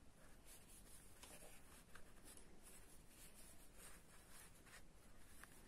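Faint, intermittent rustling and rubbing of fingers handling a crocheted yarn piece; otherwise near silence.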